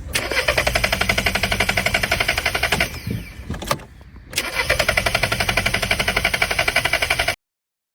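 A car engine is cranked on the starter in two attempts of about three seconds each, with a quick, even rhythm and a short pause between them. It never catches and runs: a crank-but-no-start, the kind a failed camshaft position sensor can cause.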